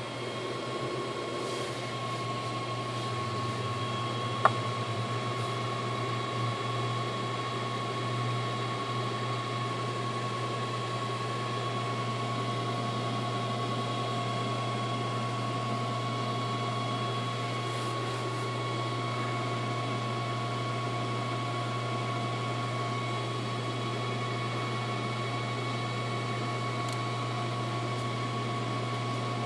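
Steady electrical hum and fan noise from the powered-up cockpit avionics, with a fixed high whine over it and one sharp click about four and a half seconds in.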